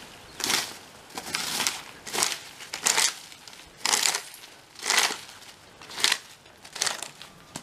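A garden rake scraped repeatedly over the ground, in separate strokes roughly one a second and unevenly spaced.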